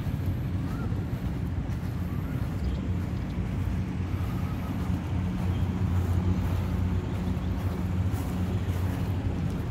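Steady low rumble of motor-vehicle engines from street traffic.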